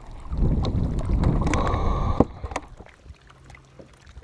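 Wind buffeting the microphone with water sloshing around a kayak, with a few sharp clicks, cutting off abruptly about two seconds in. A quieter stretch follows, with a faint low hum and light handling clicks.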